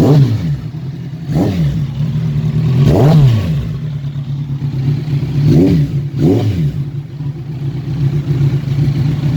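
Kawasaki Z1000SX inline-four engine idling with about five quick throttle blips. Each blip sends the revs up and back down to idle; the third is the largest. It settles to a steady idle for the last few seconds.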